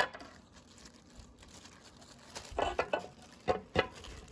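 Packaging and small parts being handled: quiet rustling, then a run of sharp clicks and taps with rustling about halfway through.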